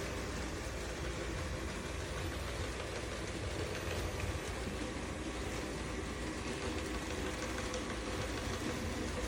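Robot vacuum running, a steady motor and suction whir with a low hum.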